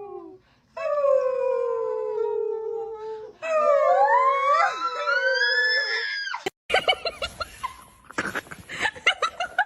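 A dog howling in long drawn-out howls, the first slowly sinking in pitch; from about three and a half seconds a second howling voice joins, the two rising and falling across each other. After a sudden cut near two-thirds of the way, short irregular noises follow.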